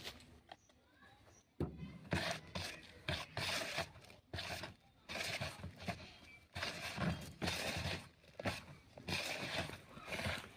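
Hands mixing dry feeder-bait powder and flours: irregular scraping and rustling in short bouts, with small knocks, starting after a moment of quiet.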